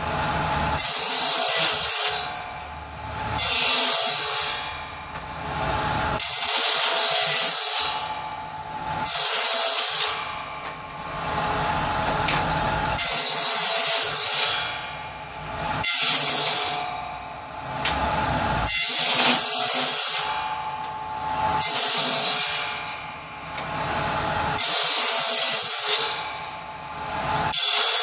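Power saw cutting firewood into kindling: a steady running sound with a loud rasping cut through the wood about every two to three seconds.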